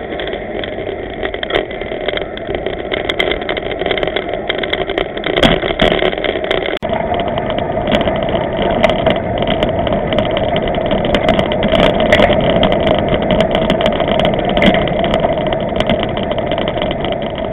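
Steady wind and road rumble on a bicycle-mounted camera's microphone while riding, with small rattles and clicks. The sound drops out for an instant about seven seconds in.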